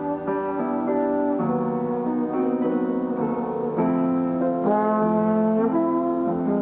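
Jazz trombone and piano duet playing a slow ballad: the trombone holds long melody notes over the piano's chords.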